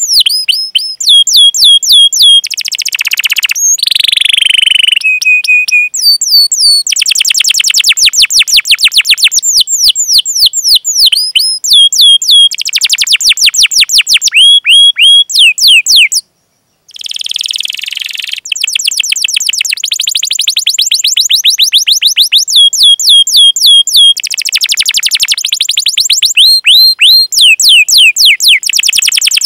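Domestic canary singing a fast, tightly packed song: rapid rolling trills of downward-sweeping notes, broken by short runs of steady repeated whistled notes. The song stops briefly a little past halfway, then resumes.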